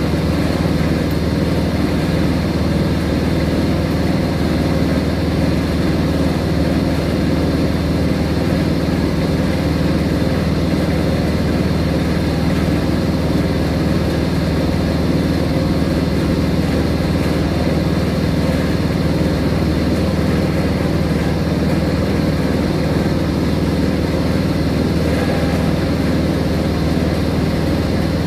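Steady, loud drone of running plant machinery in a water filter room: a constant hum made of several steady tones, unchanging throughout.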